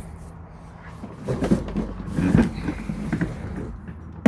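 Clunks, scrapes and rattles of an Igloo cooler in a pickup bed being reached and opened by hand, in two short bouts, with a sharp click near the end, over a low steady hum.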